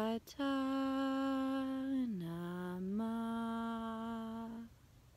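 A woman's voice intoning long, steady held notes. A brief note is followed by a short break, then a long note that drops lower about two seconds in, steps back up a little about a second later, and stops shortly before the end.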